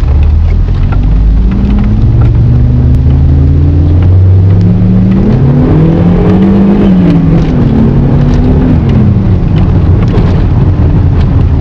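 VW Passat G60's supercharged 1.8-litre four-cylinder, breathing through a drilled-out airbox with a Pipercross sport filter, pulling under acceleration. The revs climb, drop back about four seconds in, climb again to a peak just past the middle, then ease off and settle to a lower steady note.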